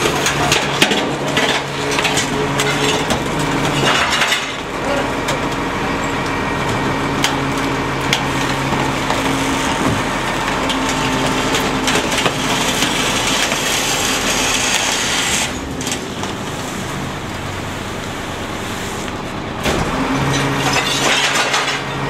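Rear-loading garbage truck's diesel engine running at the back of the truck while trash is tipped into the hopper and crushed, with clattering, cracking and crunching. The engine's pitch changes in steps several times.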